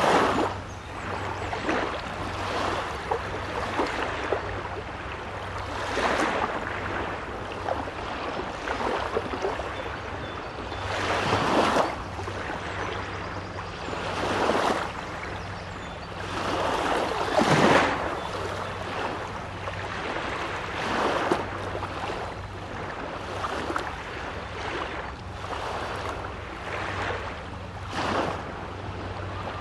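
Small waves breaking and washing up on a Baltic Sea beach, one swell every couple of seconds, with two louder breaks partway through. A steady low hum runs underneath.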